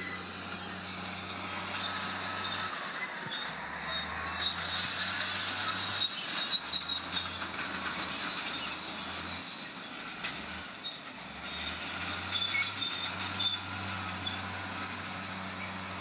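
Crawler bulldozer at work: its diesel engine hums steadily under load while the steel tracks squeal and clank, with sharper clatters in a cluster about six seconds in and again later as it shoves rock and dirt with the blade.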